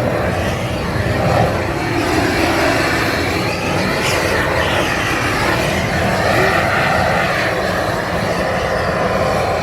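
Propane torch flame running steadily over an ice sculpture, glazing the surface clear and smooth like glass.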